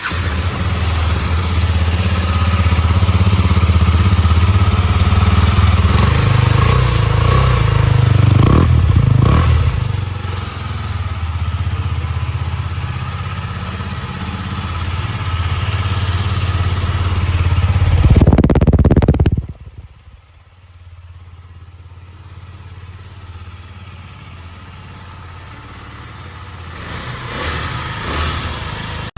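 Husqvarna Svartpilen 250's single-cylinder engine running through its stock exhaust. It is held at raised revs with a sharp, loud rev about eighteen seconds in, then drops suddenly to a quieter idle with a small rise in revs near the end.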